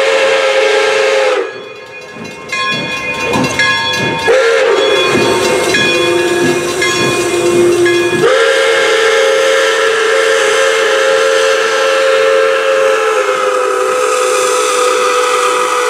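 Pere Marquette 1225, a 2-8-4 Berkshire steam locomotive, sounding its steam whistle for a grade crossing: a blast that breaks off about a second and a half in, a softer stretch with a bell ringing in a steady beat, then a long loud blast from about eight seconds on that drops slightly in pitch past the middle.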